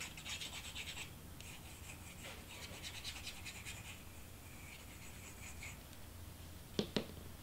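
Nozzle of a squeeze glue bottle scratching lightly across cardstock as glue is traced around a paper piece, pausing briefly about a second in and stopping near six seconds. Two sharp taps close together near the end.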